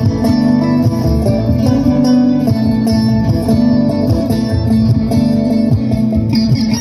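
Live bluegrass string band playing loud and amplified: fast plucked string picking over a steady bass line.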